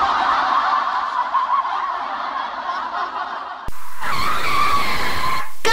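Edited cartoon sound effects: a rough, raspy, fluctuating noise for about three and a half seconds, then an abrupt cut to a louder cartoon voice in quick, laugh-like repeated bursts.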